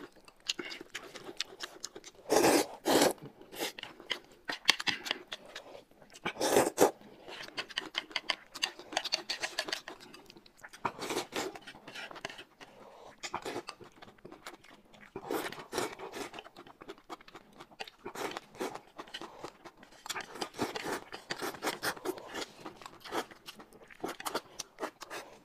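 Close-miked eating: stir-fried noodles being slurped and chewed with many small wet mouth clicks and smacks. Louder slurps come about two and a half and six and a half seconds in.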